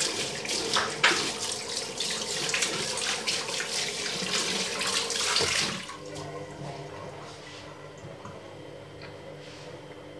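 Tap water running into a ceramic washbasin and splashing as a hand swishes it around the bowl to rinse it. The flow stops about six seconds in, leaving a faint steady hum.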